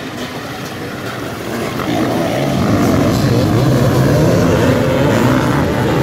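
A pack of enduro dirt bikes racing off the start, many engines revving over one another. It gets louder about two seconds in as the riders pass close by.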